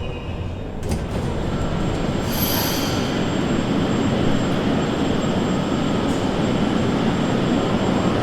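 Inside a Moscow Metro 81-775 "Moskva-2020" car running in the tunnel: a dense rumble of wheels and running gear growing louder, with a brief high wheel squeal about two to three seconds in.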